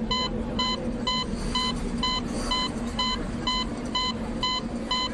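A short electronic beep repeating evenly about twice a second, over a steady low hum.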